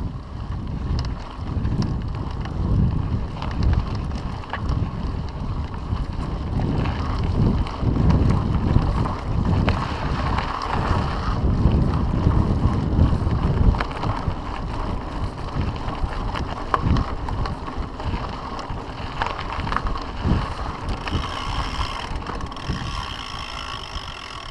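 Mountain bike rolling over dirt singletrack: a steady low rumble of wind buffeting the handlebar-mounted camera's microphone and of tyres on the trail, with small rattles and clicks from the bike over bumps. A higher whirring joins near the end.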